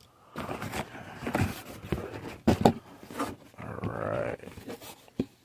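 A cardboard shipping box being opened by hand: irregular tearing, scraping and rustling of cardboard and packaging, with a longer tearing sound near the end.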